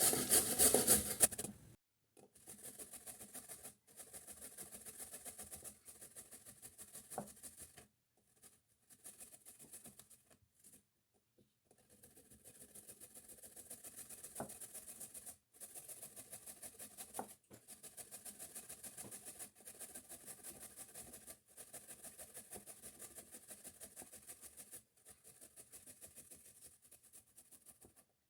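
Raw turnips being grated by hand on a grater in quick rhythmic scraping strokes, with a few short pauses. A brief clatter of kitchenware comes first.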